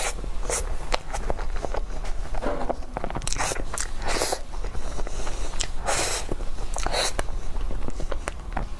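Close-miked eating sounds as a soft, cream-filled cake is bitten and chewed: irregular wet mouth clicks, lip smacks and squishy chewing.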